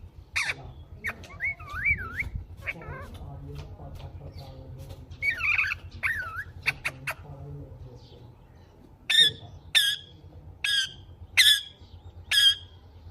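Green parrot calling. Wavering, whistled chirps that glide up and down come through the first half, then near the end five sharp, loud screeches follow one another a little under a second apart.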